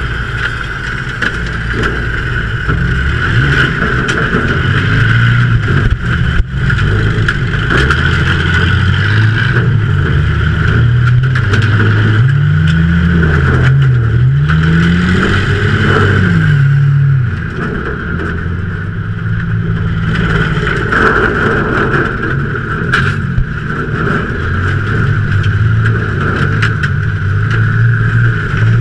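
Ford Taurus race car's V6 engine heard from the cockpit under racing load, loud throughout, its pitch rising and falling repeatedly as the throttle is opened and lifted, over a steady roar of wind and tyres.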